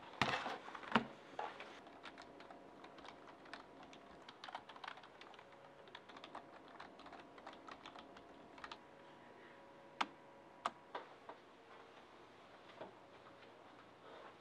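Typing on a computer keyboard: a quick, busy run of key clicks that thins out after about nine seconds to a few separate keystrokes.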